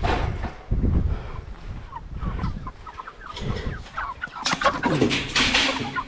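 Chickens clucking and squawking in short, repeated calls, with two louder stretches of scuffling noise as the birds are grabbed and loaded up.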